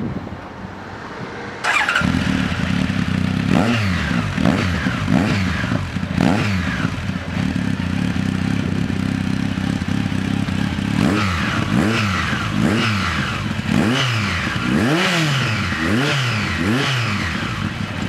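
Honda CB1100's air-cooled inline-four through a Yoshimura Cyclone titanium exhaust, stationary, getting louder about two seconds in and then revved with repeated throttle blips, each one rising and falling in pitch. The blips come a few at a time at first and in a quick run of several near the end.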